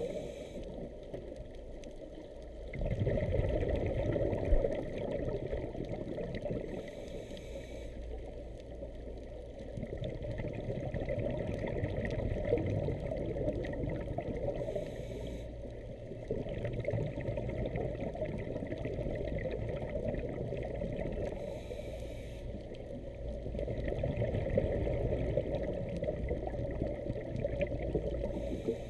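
Muffled underwater wash as picked up by a camera in a housing, with a short bubbling hiss about every seven seconds, typical of a scuba diver exhaling through a regulator.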